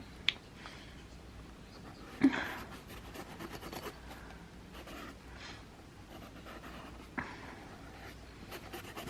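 Broad-tipped marker rubbing over a surface as it colours in a background, with a sharp click just after the start, a louder knock about two seconds in, and another click about seven seconds in.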